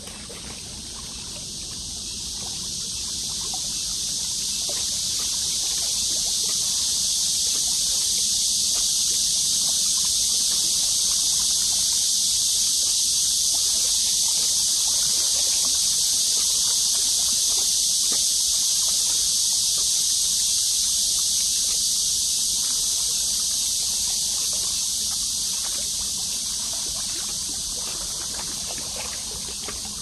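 A steady high-pitched hiss that swells in over the first several seconds and fades away toward the end.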